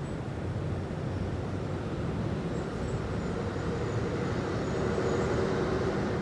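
City ambience: a steady low rumble of distant traffic. A vehicle's hum swells a little louder in the second half.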